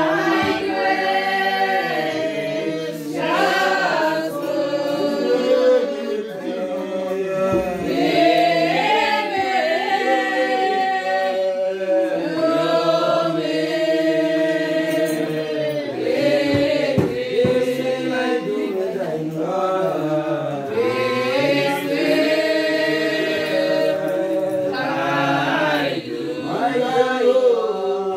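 Church congregation singing a hymn together, the voices holding long notes.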